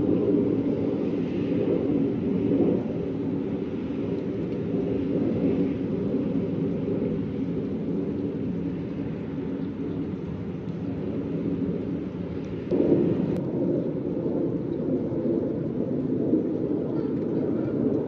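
Low, steady rumble of wind buffeting the microphone, with a jump in level about thirteen seconds in.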